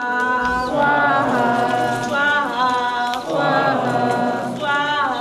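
Hindu devotional chanting: voices sing long held notes, and the pitch slides downward twice.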